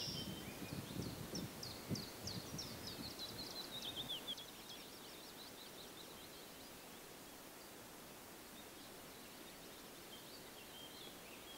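Small songbirds singing, with the low crunching rumble of a car's tyres on a gravel road for the first four seconds. After that only a faint steady hiss and an occasional distant bird note.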